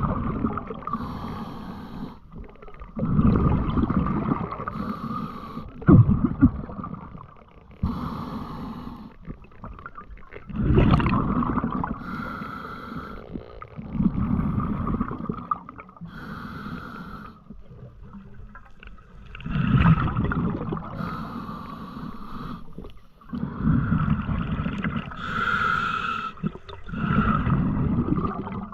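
Surges of rushing, swishing water noise, about every two to four seconds, picked up by an underwater camera on a snorkel spearfishing dive.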